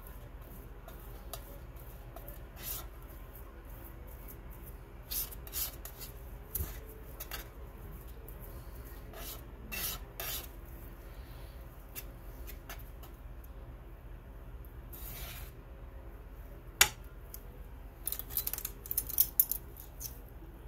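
Steel palette knife scraping and tapping on a paint slab as it works coarse, unground Prussian blue pigment into oil: short gritty scrapes scattered throughout, a sharp tap about three quarters of the way in, and a quick run of clicks near the end.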